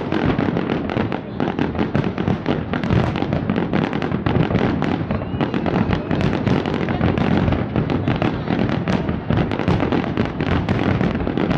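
New Year fireworks display: a dense, continuous barrage of overlapping bangs and crackles with no break.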